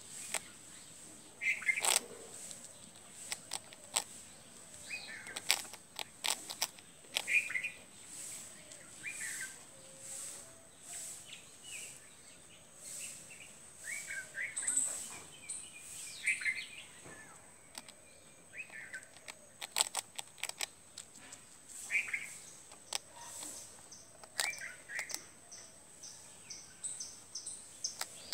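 Sharp, irregular crunching clicks of a squirrel gnawing hard toast, with short bird chirps scattered between them and a steady high whine.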